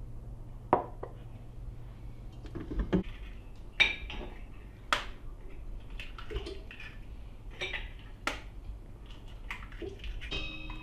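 Eggs being tapped and cracked on the rim of a stainless-steel mixing bowl: irregular sharp knocks and clinks a second or so apart, over a low steady hum. A steady tone comes in near the end.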